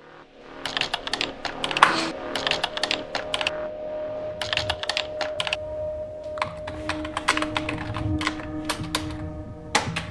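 Fast typing on a computer keyboard: bursts of rapid key clicks with short pauses between them, starting under a second in. Quiet background music with long held tones plays underneath.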